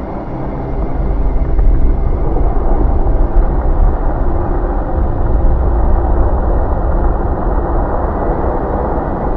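Oil-and-water fireball from a pan of burning cooking oil: a loud, steady rumble of flames, heaviest in the low end, swelling about a second in. It is the sign of water flashing to steam in the hot oil and throwing the burning oil up and out.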